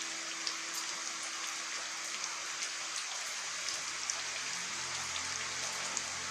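Aerosol spray paint can spraying in a steady hiss, with scattered small crackling ticks.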